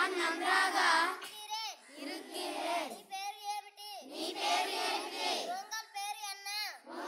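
A group of schoolchildren chanting short Tamil phrases aloud together, in a sing-song recitation. There are about six phrases, each roughly a second long, with brief pauses between them.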